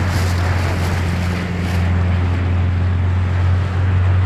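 Motorboat engine running with a steady low hum, under the noise of wind on the microphone and choppy waves.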